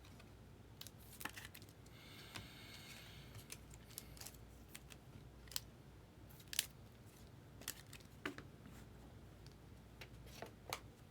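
Trading cards being handled and slid into rigid plastic top loaders: faint, scattered clicks and taps of card and plastic, with a short scraping slide about two seconds in.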